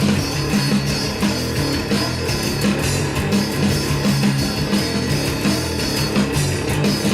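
An amplified electric guitar plays a heavy rock riff in steady rhythm, recorded as a take of the cleaner of the player's two amp sounds.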